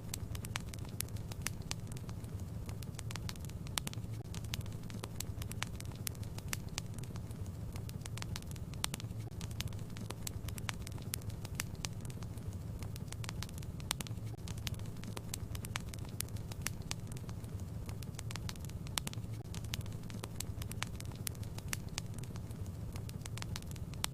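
Wood fire crackling in a fireplace: frequent, irregular sharp snaps and pops over a steady low rumble.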